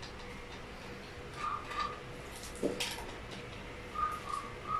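Steady low hum with a few short, high whistle-like notes in two small groups, and a couple of sharp clicks about two and a half to three seconds in as the metal hardware of a gaming chair seat is handled.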